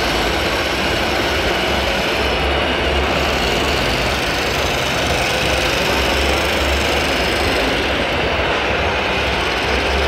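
Radio-controlled Liebherr L574 wheel loader working, with a steady engine-like rumble whose low throb swells every few seconds over a constant hiss of hall noise.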